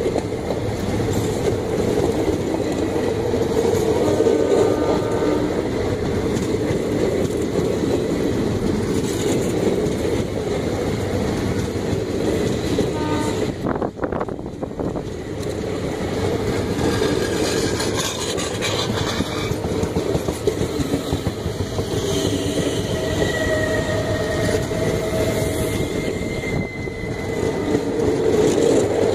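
Passenger coaches of an Indian Railways express train rolling past close by: a loud, steady rumble of steel wheels on the rails. Faint brief high tones come through a few times.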